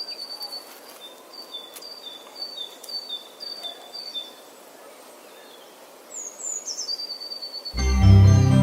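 A bird calling a high two-note phrase, the second note lower, repeated about twice a second and then stopping; after a pause come a few quick falling notes and a long held high whistle. Loud organ-like keyboard music cuts in abruptly near the end.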